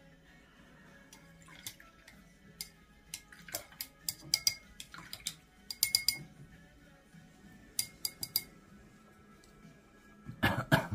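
A paintbrush being rinsed in a water glass, with a string of sharp clinks and taps against the glass and light splashing. A short louder knock comes near the end.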